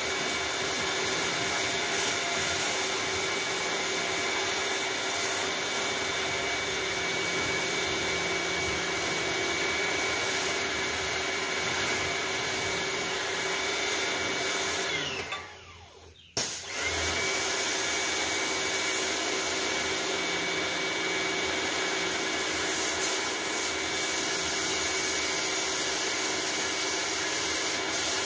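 Pressure washer running: a steady motor whine over the hiss of the high-pressure water jet cleaning styrofoam hydroponic panels. A little past halfway the motor winds down and stops for about a second, as when the trigger is released, then starts again abruptly and keeps running.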